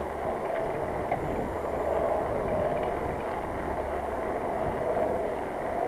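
Bicycle riding along a path: a steady rush of tyre and wind noise, with a few faint clicks.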